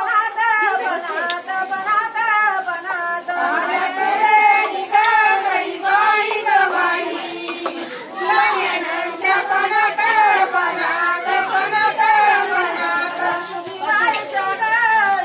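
Women singing a traditional Marathi wedding song in the jatyavarchi ovi (grinding-mill song) style, unaccompanied, with long, wavering held notes.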